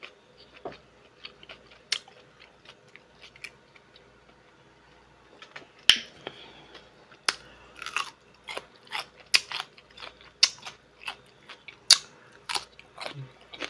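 Close-miked eating sounds: chewing and biting, with sharp wet mouth clicks. They come sparsely at first and grow denser about halfway through.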